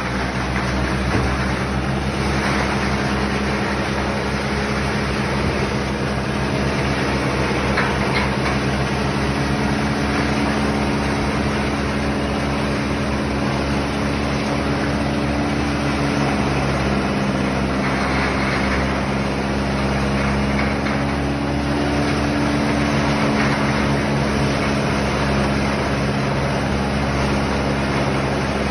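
Tractor engine running steadily under load, driving a forage harvester that chops Napier grass and blows the cut forage up its spout into a trailer. The engine's pitch wavers slightly.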